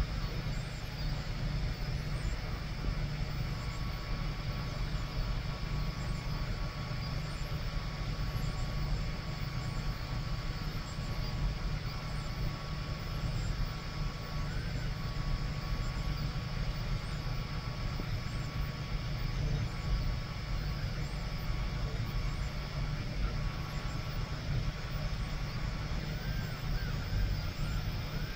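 Home-built 3D printer running a print: a steady hum from the part-cooling blower fan and motors, with a thin stepper-motor whine that cuts in and out. Near the end, short whines glide up and down as the print head changes moves.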